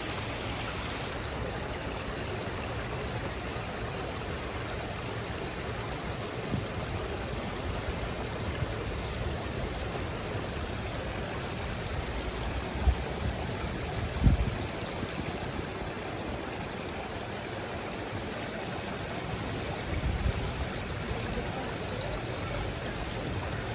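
Steady rushing noise like running water, with two low thumps in the middle and short high electronic beeps near the end: two single beeps, then a quick run of five.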